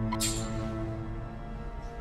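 Background film score of sustained low notes that fade slowly.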